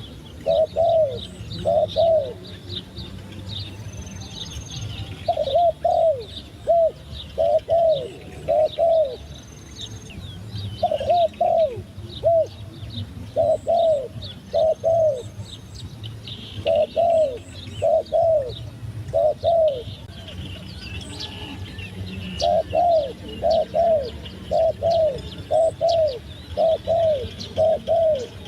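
Zebra dove cooing in repeated phrases of quick, clipped notes, three to eight notes a phrase with short pauses between. Other small birds chirp faintly in the background.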